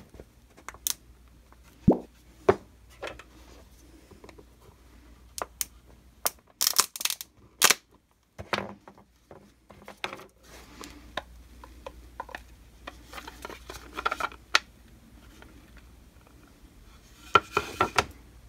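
Scattered clicks and knocks of a 3D-printed plastic injection mold being handled and opened, with a quick run of sharp clicks about seven seconds in and again near the end.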